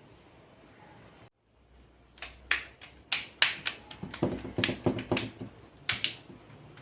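Plastic laptop casing parts clicking and snapping as they are handled and pressed together: an irregular run of sharp clicks, starting about two seconds in and stopping near the end.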